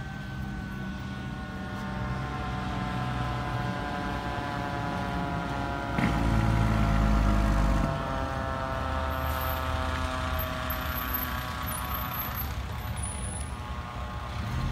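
Fire truck siren winding down in a slow, falling wail over the truck's engine running. About six seconds in there is a knock, followed by a louder engine rumble lasting about two seconds.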